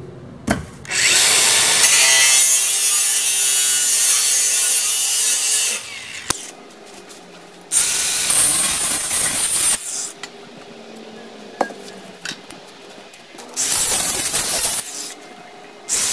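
DeWalt DCG414 cordless angle grinder with a cut-off wheel cutting through metal: one long cut of about five seconds, then shorter cuts of about two seconds and about a second each, with quieter stretches between them.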